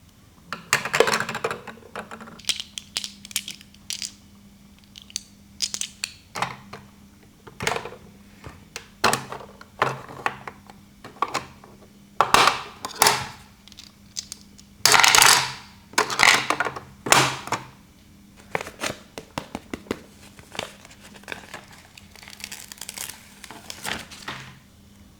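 Small hard plastic toy pieces clicking and clattering as they are handled and set down, in irregular bursts with a few longer scraping rattles. A faint steady hum lies underneath.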